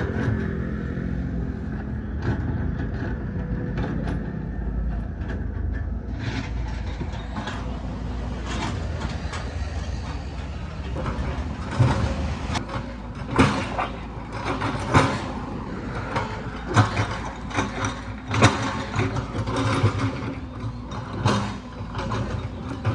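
A motor vehicle's engine running low and steady; from about six seconds in, irregular metallic clanks and rattles.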